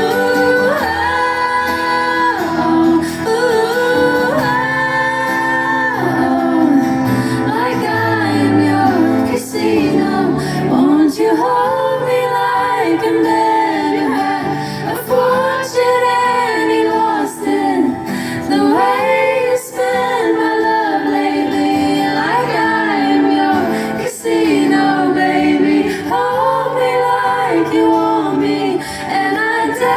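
Live band music with a woman singing the lead, her voice sliding between held notes over steady bass notes and regular drum hits, in a large room.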